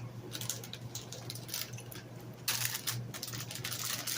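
Irregular crinkling and crackling of plastic snack packaging being handled, densest a little past halfway, over a faint steady hum.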